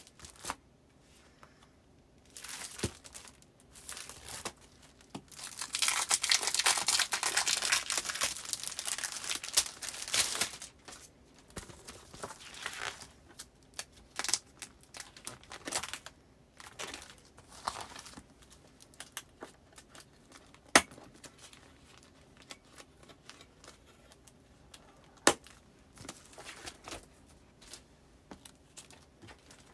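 Paper postcards being handled and slid into clear plastic file sleeves, with crinkling and rustling: one long continuous rustle in the first third, then shorter rustles and a few sharp ticks.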